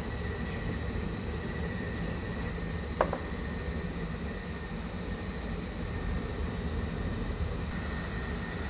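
Steady low hum and hiss with a faint high-pitched whine, broken by a single sharp click about three seconds in.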